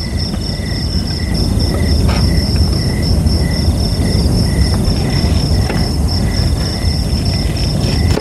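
Insects chirping in quick, evenly repeated pulses at two pitches, one high and one lower, over a loud, steady low rumble, with a few scattered clicks.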